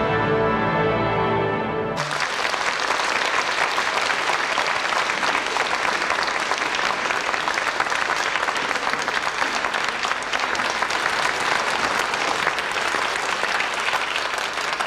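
A television programme's theme music, which cuts off sharply about two seconds in, followed by a large theatre audience applauding steadily.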